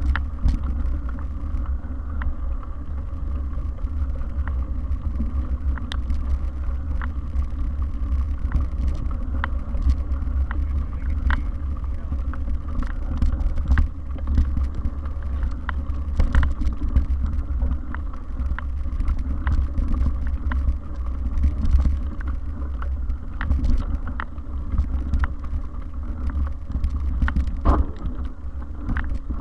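Mountain bike riding over a rough dirt singletrack, heard through a bike-mounted action camera: a steady low rumble of wind and vibration on the microphone, with frequent rattles and clicks as the bike goes over bumps.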